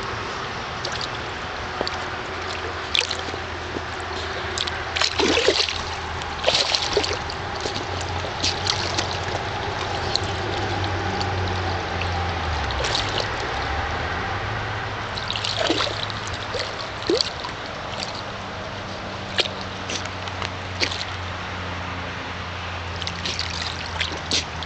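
Water in a plastic kiddie pool splashing and sloshing in short, scattered bursts as a dog wades and paws at a toy on the bottom, over a steady low hum.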